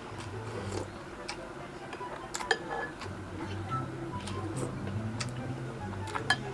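Eating utensils clinking and tapping against plates and bowls in irregular sharp clicks, the loudest about two and a half seconds in and again near the end, over a low background hum.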